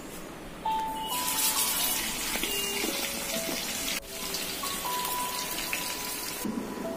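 Background music with a simple melody of held notes, over a strong sizzling hiss that starts about a second in, breaks off briefly at about four seconds and fades near the end: pomfret fish shallow-frying in oil in a flat pan.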